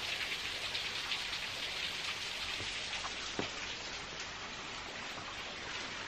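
Steady rain-like hiss of a thin, low-flow waterfall splashing onto rocks, with a faint click about three and a half seconds in.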